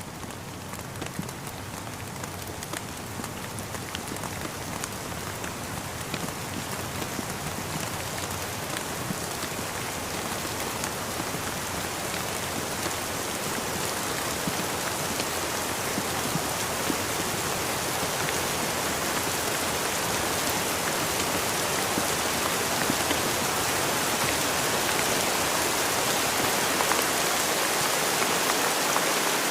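Steady rain falling, an even hiss of water with fine scattered drop ticks, growing gradually louder throughout.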